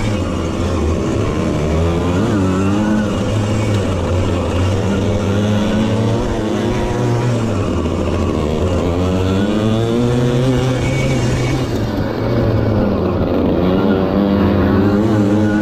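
Small two-stroke moped engines racing, the pitch rising and falling repeatedly as the rider opens and shuts the throttle through the corners.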